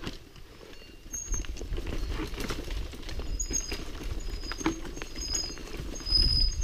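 Mountain bike clattering down a rocky trail, with rapid knocks and rattles as the tyres and frame hit stones, and wind rumbling on the camera microphone as speed picks up about a second in. Several brief high squeals from the disc brakes, whose pads the rider believes are worn down to the metal backing.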